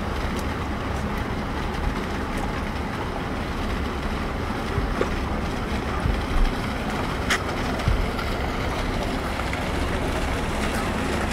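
Steady outdoor rumble and hiss, with a few soft low knocks around the middle and one brief high squeak a little after seven seconds in.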